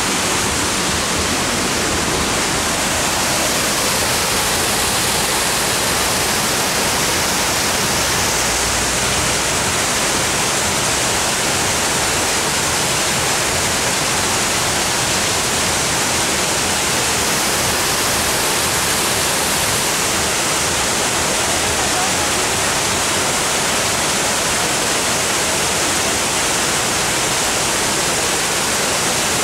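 Water pouring down a tiered artificial rock waterfall into a pool, a steady rushing noise.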